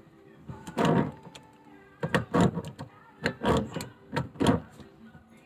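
Irregular clanks and scrapes of pliers and a water filter's fitting against a kitchen faucet, about eight in a few seconds, as the fitting is worked but will not catch on.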